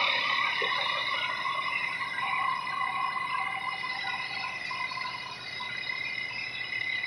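Crickets chirping in a steady chorus, several pitches sounding at once.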